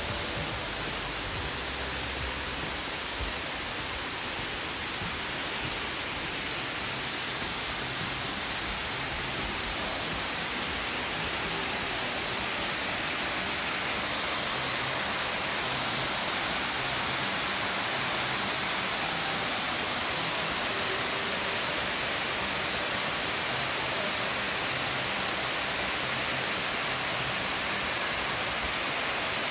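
Amicalola Falls rushing: a steady, even hiss of falling water that grows a little louder past the middle.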